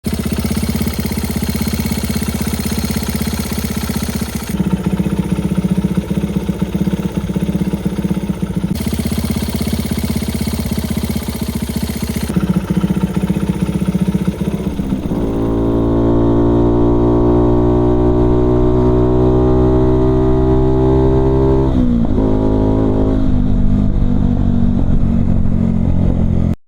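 Honda Ape's small single-cylinder four-stroke engine running, its tappets just adjusted. About 15 s in it revs up and holds a higher, steady pitch, then drops back near 22 s.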